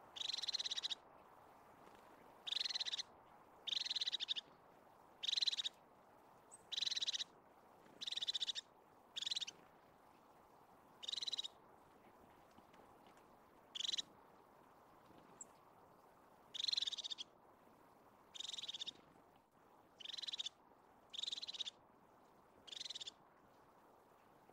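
Crested tit calling: short, rapid, high purring trills, each under a second long, repeated every one to two seconds with uneven gaps.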